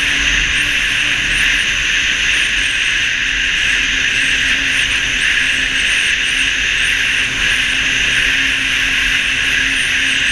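Snowmobile engine and track running steadily at cruising speed: a constant drone with a faint, wavering high whine over it.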